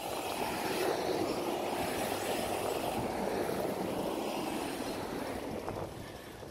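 Cars driving past on the bridge roadway: tyre and engine noise that swells just after the start and fades near the end.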